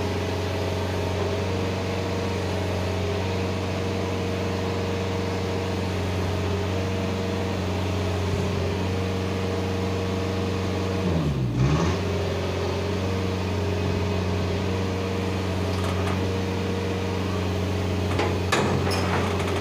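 Engine running steadily at raised revs to power a container side loader's hydraulics, its pitch dipping and recovering once about halfway through. A few short knocks sound near the end.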